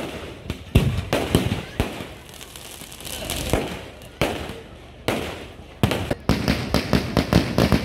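Aerial fireworks going off overhead: sharp bangs and crackles, a second or so apart at first, then a fast string of cracks, about three or four a second, near the end.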